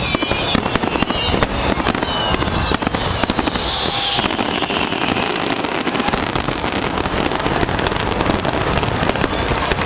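Fireworks finale barrage: many aerial shells bursting in rapid, overlapping succession, a continuous stream of bangs and crackle with no pause.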